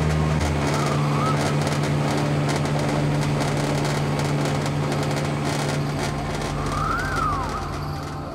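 River boat's engine running steadily under way, a constant low drone. Two faint short whistling glides sound over it, about a second in and again near the end.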